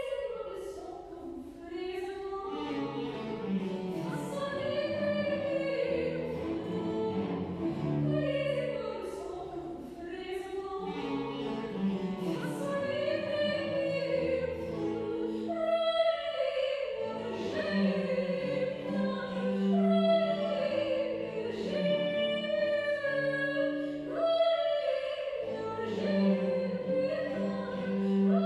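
A soprano sings a French baroque aria with vibrato, coming in right at the start, over baroque cello and theorbo accompaniment.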